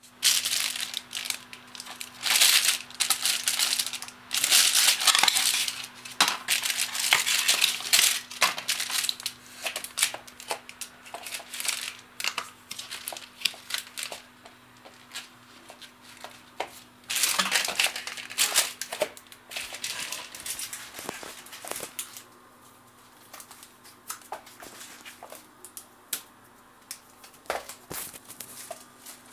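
Clear plastic packaging bag crinkling and rustling in bursts as it is handled, loudest in the first third and again just past the middle, with scattered light clicks and taps in between. A faint steady hum runs underneath.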